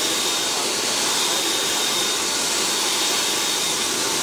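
Snow machine blowing artificial snow: a steady rushing hiss with a faint high whine.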